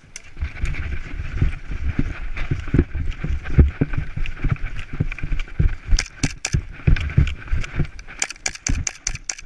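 Running footsteps, with heavy irregular thuds as the wearer runs, then a series of sharp cracks in the second half: airsoft guns firing.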